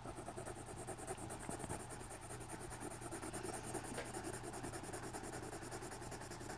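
Green coloured pencil scratching softly on drawing-pad paper, colouring in with light, small circular strokes.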